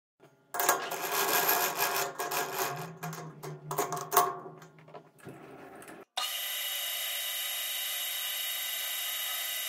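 A metal part being fitted into a three-jaw lathe chuck, with irregular clinks, knocks and scraping. About six seconds in, the lathe starts abruptly and runs with a steady, even whine while a cutting tool turns the part.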